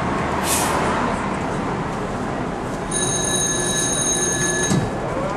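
Door-closing warning bell of a Tatra T4D tram ringing steadily for about two seconds, starting about three seconds in, over the steady background noise of the standing tram. It signals that the doors are about to close. There is a short hiss about half a second in.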